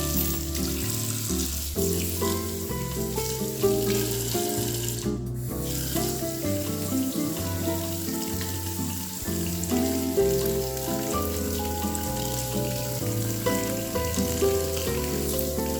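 Water running steadily from a Delta kitchen faucet, a hiss that cuts out briefly about five seconds in, under background music with a bass line.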